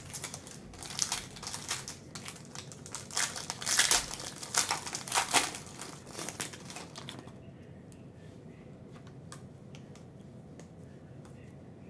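Foil wrapper of a Panini Prizm basketball card pack being torn open and crinkled by hand for about seven seconds, then fainter, with scattered light ticks.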